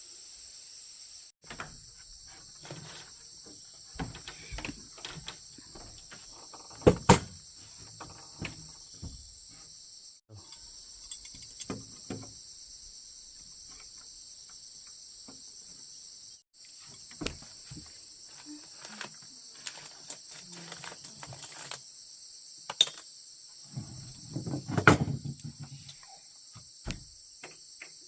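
Steady high chirring of insects in the forest, with scattered knocks and thuds from wood being handled. The loudest thuds come about a quarter of the way in and again near the end.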